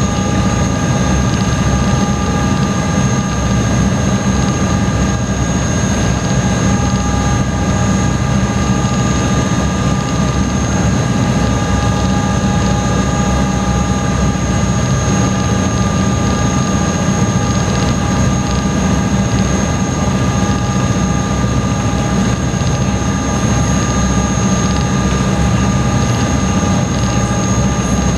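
Engines of a high-speed passenger boat running steadily, heard from inside the cabin: a loud, constant deep drone with a steady high whine over it.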